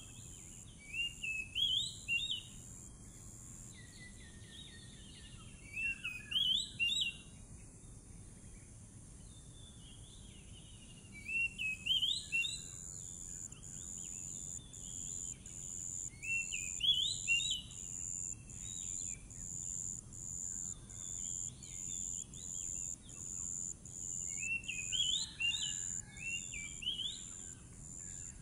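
Oriental magpie-robin (kacer) singing quick whistled phrases in five short bursts several seconds apart, over a steady high buzz that starts pulsing about once a second midway through.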